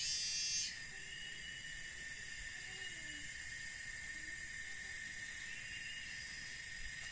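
Steady, shrill drone of a forest insect chorus, with a layered trilling tone at the start that stops under a second in.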